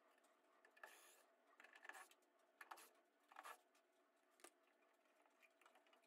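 Near silence, with about five faint, brief clicks and rustles of handling as a furnace's draft inducer is taken off.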